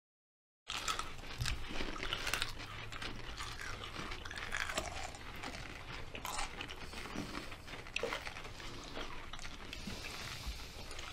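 Several people biting into and chewing crunchy pickles, many crisp irregular crunches over a low steady hum, starting after a moment of silence.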